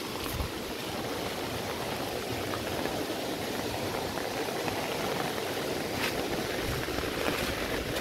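Steady rush of a waterfall and the stream cascading over the boulders below it.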